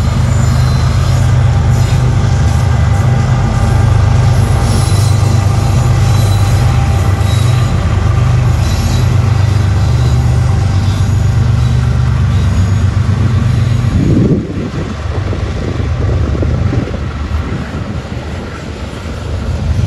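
Freight train passing: the diesel locomotives' engines run with a heavy, steady drone, with a high squeal from the wheels now and then. About 14 seconds in the locomotives are past and the drone drops away, leaving the hopper cars' wheels rolling by on the rails.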